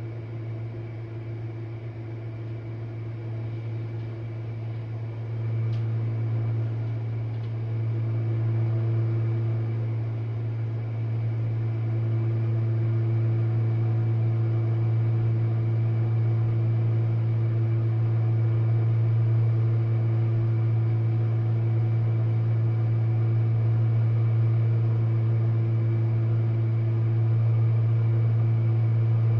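Jenn-Air dishwasher running its wash cycle: a steady low motor hum with a hiss of water over it. It grows louder about six seconds in and again around twelve seconds.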